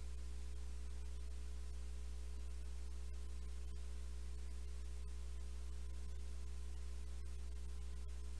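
Steady low electrical hum with a row of faint overtones above it and a light hiss.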